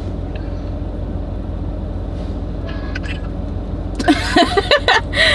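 Car engine idling, a steady low hum heard from inside the cabin. Voices come in briefly near the end.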